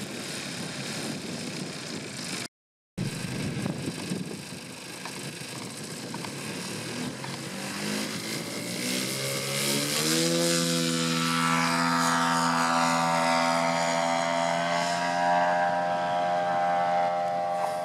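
Large-scale RC model Bellanca's 156 cc engine: first a low, noisy running sound broken by a brief dropout, then, from about seven seconds in, the engine is throttled up for take-off, its pitch rising, and holds a steady, high-pitched full-throttle note as the plane climbs out.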